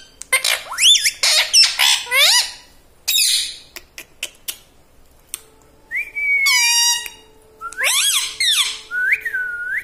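Indian ringneck parrot squawking and whistling: a quick run of sharp, sliding calls in the first couple of seconds, a few clicks, then longer whistled calls from about six seconds in.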